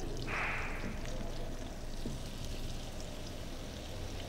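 Flour pushed off a plate with a wooden spatula into melted butter in an aluminium pan: a brief rush of noise just after the start. Then the butter and flour sizzle faintly with light crackles as a roux begins to cook over a low flame.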